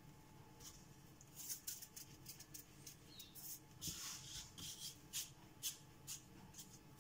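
Hands rolling flour dough into a long rope on a bamboo cutting board: faint, irregular rubbing strokes of palms over dough and wood, picking up about a second and a half in.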